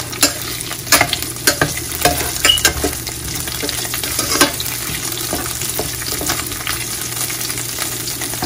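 Strips of pork frying in rendered pork fat in a stainless steel pan, sizzling steadily while a metal spoon stirs them, scraping and clinking against the pan. The clinks come often in the first four seconds or so, then thin out.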